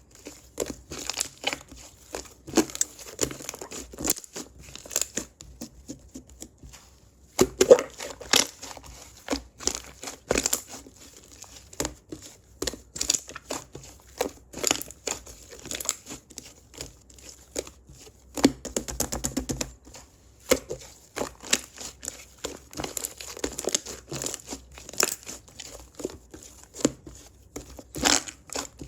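Slime being squeezed, stretched and poked by hand, giving dense, irregular sticky clicks and crackles.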